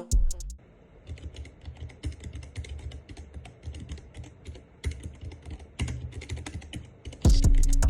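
Typing on a Keychron K3 low-profile mechanical keyboard with optical red switches: a rapid, continuous run of soft, quiet keystrokes. Music cuts in near the end.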